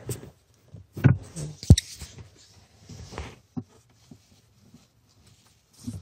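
Handling noise of a wire being fed and pulled behind a truck's dashboard: light rustling with a few scattered clicks and knocks, the sharpest a little before two seconds in, then mostly quiet.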